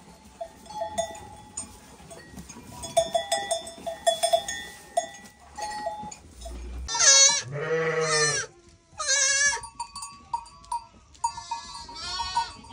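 Goats bleating: three loud, wavering bleats in the second half, after light bell-like clinking in the first half.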